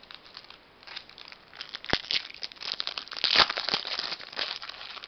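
Wrapper of a 2020 Topps Opening Day baseball card pack crinkling as it is torn open and pulled off the cards: a dense run of crackles that starts sparse and thickens about a second and a half in.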